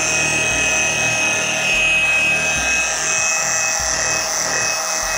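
Electric machine polisher with a yellow polishing pad running steadily at speed setting three on a headlight lens, a constant motor whine over a hiss.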